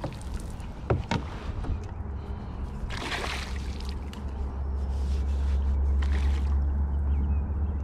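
Water sloshing around a canoe, with two light knocks about a second in and a short splash about three seconds in. From about four seconds a low wind rumble sets in on the microphone.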